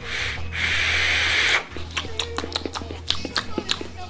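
A long draw on a sub-ohm vape with a rebuildable dripping atomizer: a loud hiss of air through the fired coil for about a second and a half, stopping sharply. Background music with light ticks carries on after it.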